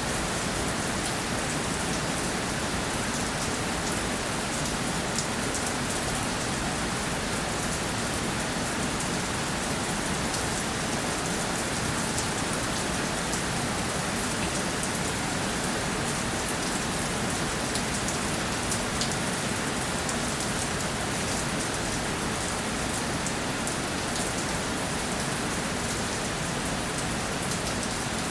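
Steady rainfall, a dense even hiss of rain with fine scattered drop patter.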